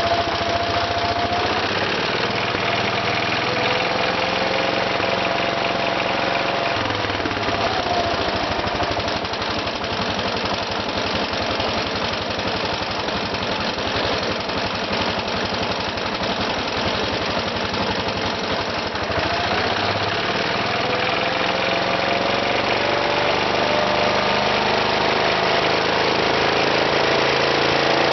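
Case 222 garden tractor's Kohler K301 12-horsepower single-cylinder engine running steadily, its speed shifting up and down a few times. It runs on a newly fitted ignition coil and condenser after barely running before.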